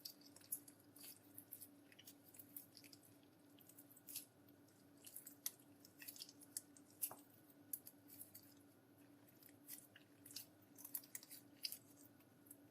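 Slime being kneaded and stretched by hand, making faint, irregular sticky pops and crackles.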